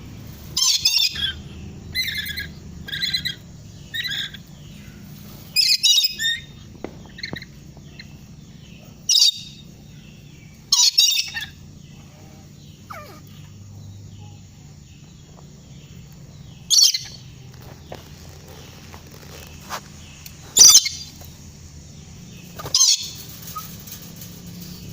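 Lory (nuri) parrot giving short, shrill calls, about one a second at first, then singly or in pairs a few seconds apart.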